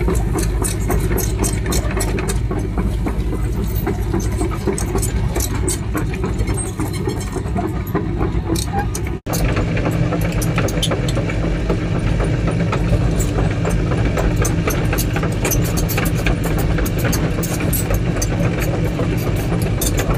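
Small crawler excavator's diesel engine running steadily, heard from inside the cab, with rapid clicking and clatter over it as the machine travels with a loaded bucket. The sound cuts out for an instant about halfway through.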